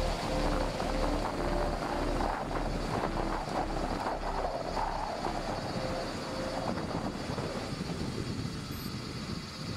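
Road bike coasting downhill: a steady rush of wind over the camera microphone with tyres rolling on tarmac. Faint music notes fade out in the first couple of seconds.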